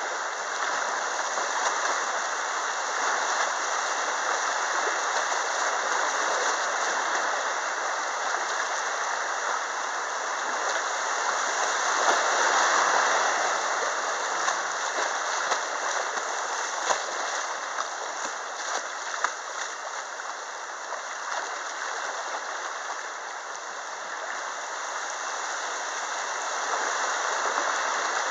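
Shallow river riffles rushing and splashing around a kayak as it runs through whitewater, swelling louder about twelve seconds in, with a few brief sharper splashes.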